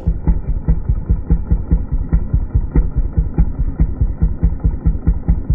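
Ported Echo 4910 50cc chainsaw engine running. The sound is muffled and dull and pulses evenly about five to six times a second.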